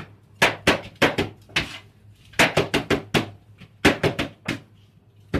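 Shawarma meat being chopped with a knife on a cutting board: quick runs of three to five sharp knocks, again and again, over a steady low hum.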